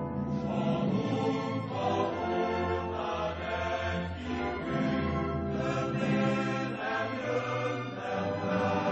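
Background music: a choir with orchestra, slow sustained chords that shift every half second or so.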